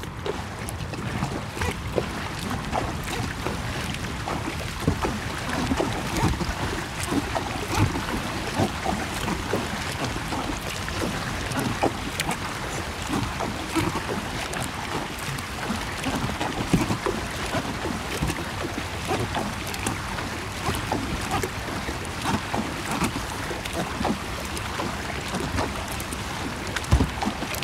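Kayak paddle strokes splashing and water rushing along the hull of an Oru Kayak Bay ST folding kayak paddled at a sprint, a steady wash of water with many short splashes throughout.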